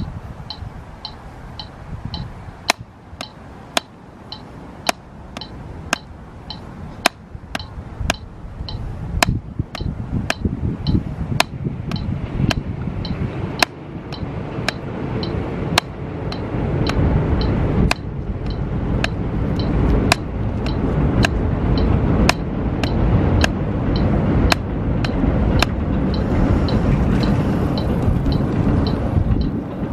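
Drumsticks striking a drum practice pad: an even run of light taps, about four a second, with louder accented strokes mixed in. A low rumbling noise builds up under it in the second half.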